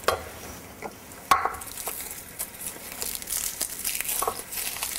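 Chopped onion scraped across a wooden cutting board with a knife and dropped into a small bowl, with a few sharp knocks, the loudest just over a second in. Scallops frying in a pan keep up a sizzle underneath, stronger in the second half.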